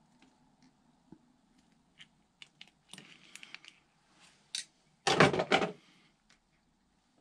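Light clicks and rustling of small parts and a hand tool being handled, with a brief, louder clatter of several quick knocks about five seconds in.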